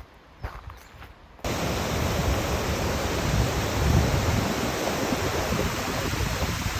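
A few faint footsteps on a path, then about a second and a half in a sudden switch to the loud, steady rushing of a waterfall.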